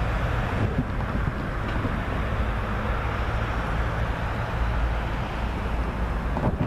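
Wind rushing over the microphone, a steady low rumble with a faint low hum beneath it.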